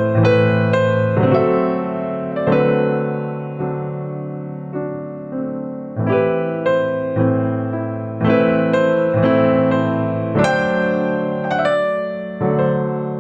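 Background music: soft piano chords struck about once a second and left to ring out.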